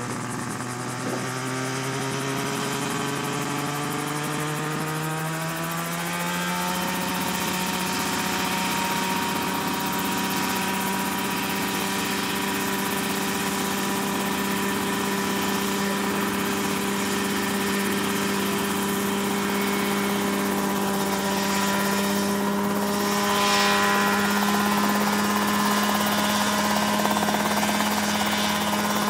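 Mosquito ultralight helicopter running up: engine and rotor note climbing in pitch over about the first seven seconds, then holding steady at the higher speed.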